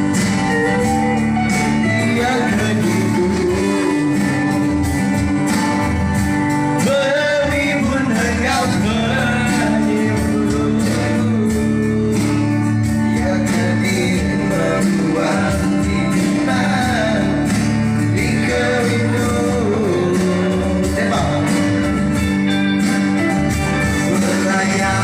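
A song played with a singing voice over instrumental band accompaniment.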